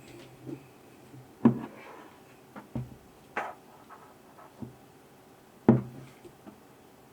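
Scattered knocks and clicks of tools and parts being handled and set down, about half a dozen, with two louder knocks about a second and a half in and near the end.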